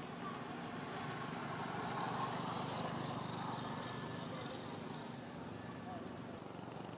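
A motor vehicle engine running in the background, growing louder about two seconds in and then fading.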